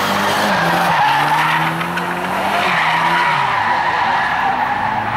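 BMW drift car sliding with its tyres squealing steadily while the engine is held at high revs, the engine note dropping briefly about half a second in and again around three seconds in.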